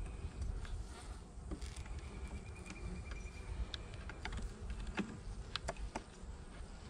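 Honeybees buzzing around an opened nuc hive, with scattered sharp clicks and scrapes as a metal hive tool pries apart the wooden frames.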